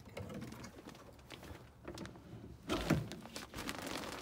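Wooden cabinet door and drawer in a truck camper being handled and opened: a run of light clicks and knocks, with one heavier thunk about three seconds in.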